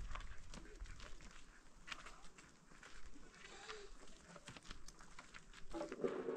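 Faint, scattered bleats from a flock of sheep and goats, the clearest near the end, over scattered small clicks.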